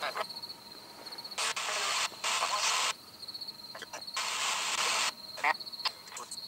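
Spirit box (ghost box) sweeping radio stations: bursts of static, each under a second long, broken by short gaps.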